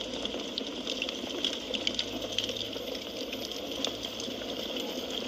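Wood fire burning in a fireplace: a steady hiss with frequent, irregular small crackles and pops.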